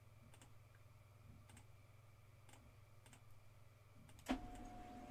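Faint, scattered clicks of a computer mouse and keyboard, about one a second. About four seconds in comes a louder knock, after which a faint steady hum sets in.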